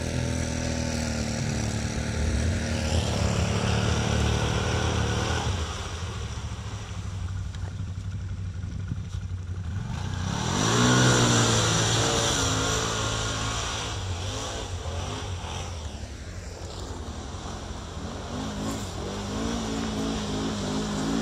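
Quad (ATV) engines running and revving as the quads push through deep mud and slush. About ten seconds in, one engine revs up hard with a rising pitch, together with a splashing, spraying hiss, and another engine climbs again near the end.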